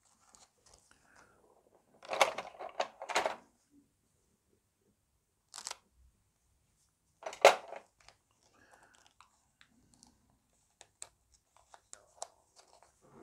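A small clear plastic bag of tiny wooden model-ship fittings being handled and opened: a few short bursts of plastic crinkling, the loudest about seven seconds in, then light scattered ticks as the parts are moved about.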